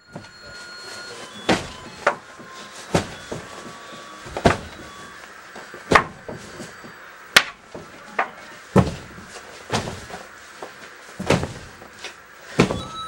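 Stuffed animals being thrown and slammed against a wooden headboard and bed: a series of about ten sharp thuds, roughly one every second or so, with the loudest a little before the middle.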